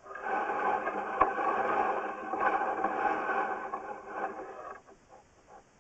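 Sewer inspection camera being pushed along the line, a continuous scraping for about four and a half seconds with a sharp click about a second in, then it stops.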